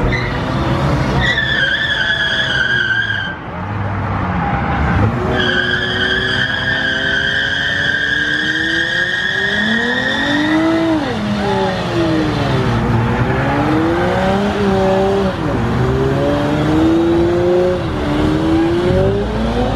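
A car doing a burnout: the tyres squeal in two long, steady screeches, the second lasting about five seconds. From about halfway through, the engine revs up and down over and over as the wheels spin.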